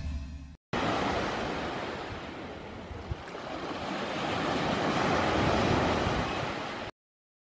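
Ocean surf washing onto a beach: a steady wash of waves that dips a little and swells again, then cuts off abruptly near the end. It opens on the fading tail of an intro whoosh.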